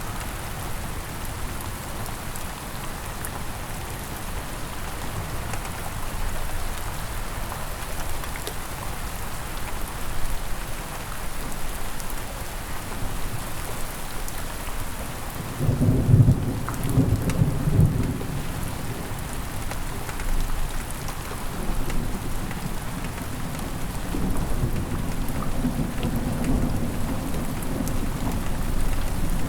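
Steady rainfall, with a low rumble of thunder rolling in about halfway through that swells for a few seconds and then trails off under the rain.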